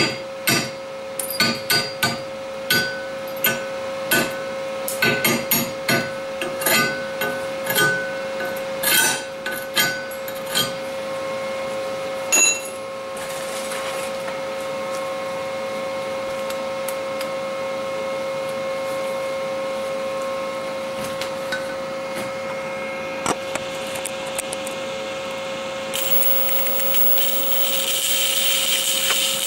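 Sharp, irregular clicks and cracks over the first ten seconds or so as the freshly laid stainless steel weld bead cools, over a steady hum. Near the end a stick-welding arc is struck and runs with a steady hiss.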